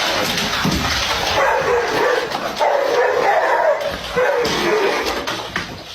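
A dog whining and yipping in a run of wavering cries.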